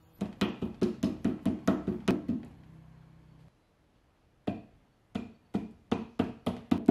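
Mallet tapping a rubber end cap into the end of a rectangular steel tube table leg: a quick run of about a dozen knocks, a pause of about two seconds, then another run of about seven knocks.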